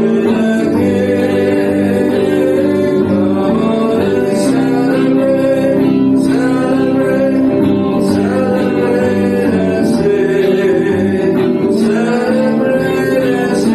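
Gospel worship song: singing over guitar accompaniment, at a steady level with strummed accents about every two seconds.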